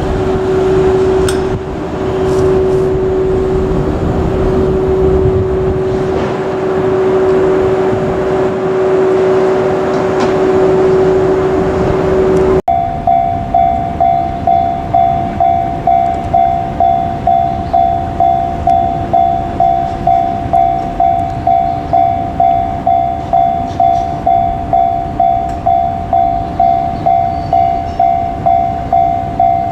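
A steady hum over a rushing rumble. About thirteen seconds in, a Japanese level-crossing warning bell takes over, ringing its two-note electronic ding about twice a second.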